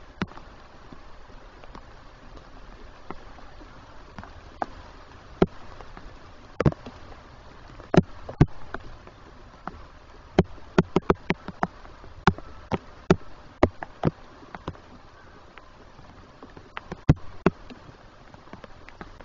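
Large raindrops striking the camera housing near the microphone: irregular sharp taps, thickest in the middle stretch, over a steady faint hiss of rain.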